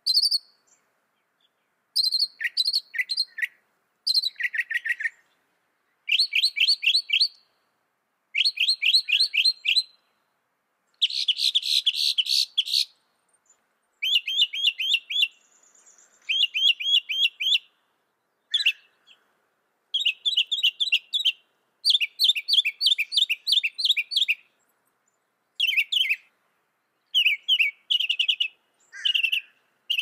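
Northern mockingbird singing: phrases of quickly repeated chirps, each phrase lasting a second or two, with short pauses between them and a new note pattern in each phrase.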